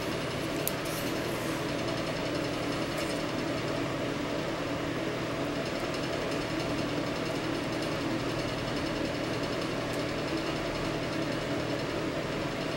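Steady hum of a small motor, with a constant low drone and an even hiss that do not change.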